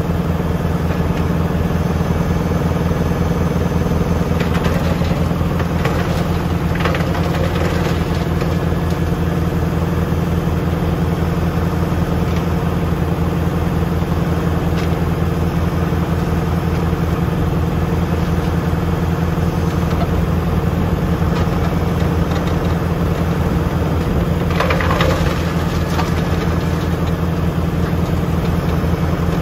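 Farm tractor's diesel engine running steadily while it drives a PTO wood chipper. A few short crackling bursts come through between about four and eight seconds in, and again about twenty-five seconds in.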